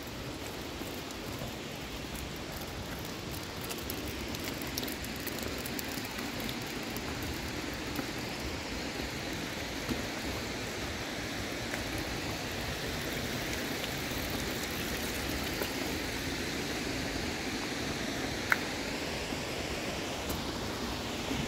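Steady rushing of water, with a few faint ticks and one sharp click near the end.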